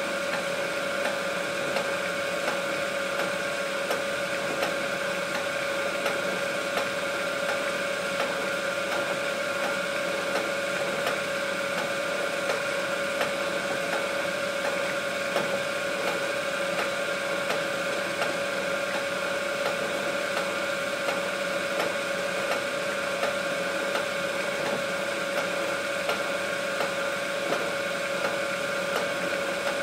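A small machine running steadily: a constant hum with fine, rapid ticking and no change in speed.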